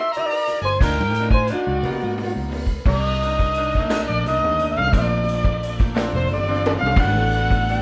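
Live jazz band playing: a soprano saxophone holds and slides between melody notes over electric bass, keyboards and a drum kit, with violin in the mix.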